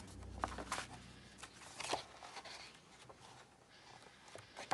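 Pages of a photobook being turned and handled: soft paper rustling with a few short sharp flicks, mostly in the first two seconds.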